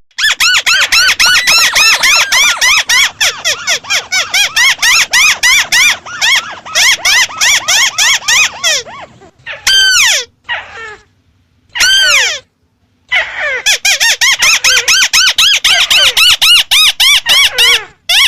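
White-browed crake calling: a fast chattering run of repeated squeaky notes, several a second. It breaks off about halfway for a few isolated single calls, then resumes in a long run.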